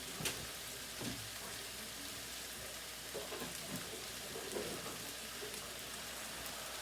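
Mixed vegetables sizzling in a frying pan, a steady crackling hiss with a few faint knocks.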